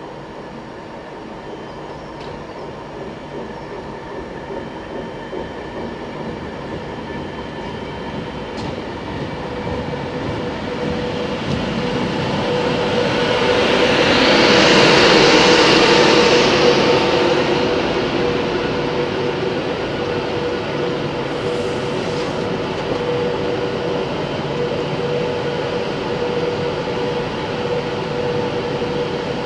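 Avanti West Coast Class 390 Pendolino electric train running close past along the platform, its noise growing to loudest about halfway through as the front coaches go by, then holding steady as the rest of the train passes. A steady electric hum sounds under the rush of the train.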